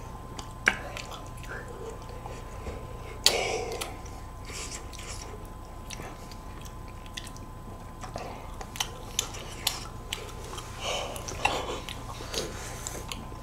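Close-miked eating of ice cream: a metal spoon clicking and scraping in a plastic parfait cup, with soft mouth sounds of eating, scattered and sparse, the loudest about three seconds in. A faint steady high tone runs underneath.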